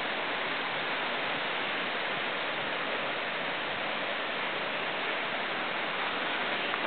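Steady rushing of water pouring over an earthen dam's spillway, an even hiss with no pauses.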